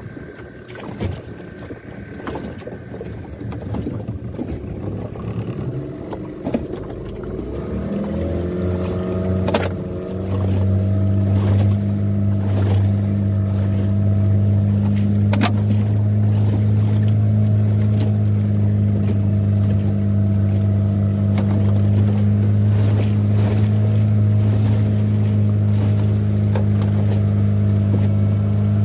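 Small 15 hp outboard motor driving a boat. It runs low at first, speeds up from about eight seconds in, then runs steadily at trolling speed, with a few sharp knocks now and then.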